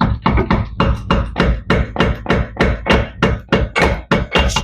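Rapid, steady knocking, about four to five knocks a second: a rear axle shaft being knocked inward by hand, used as its own hammer, to seat its splined end in the differential.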